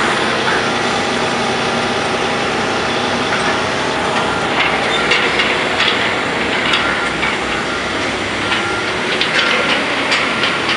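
Construction site noise: heavy diesel equipment running steadily, with irregular clanks and knocks in the second half.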